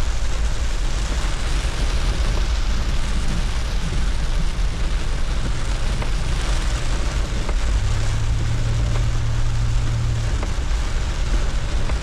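Heavy rain drumming on the roof and windshield of a 2004 Chevrolet S10 Blazer, heard from inside the cabin over the low rumble of the engine and tyres on the wet road. A steady low hum comes in for about two seconds past the middle.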